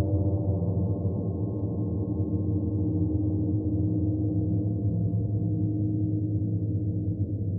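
A 60-inch rain gong sounding in a deep, sustained wash of many overlapping tones, kept rolling steadily with no distinct strike.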